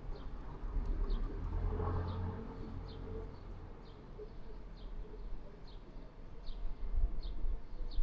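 A small bird repeating a short, high, falling chirp about once a second, over a low rumble.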